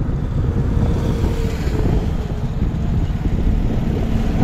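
A moving road vehicle, with steady engine and road noise and wind buffeting the microphone.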